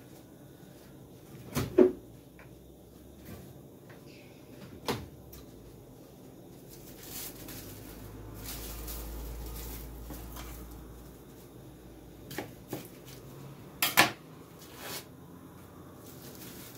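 Kitchen clatter while cooking: several separate sharp knocks and clacks of dishes, utensils or cupboard doors, the loudest about two seconds in and again near the end. A soft low rushing sound swells and fades in the middle.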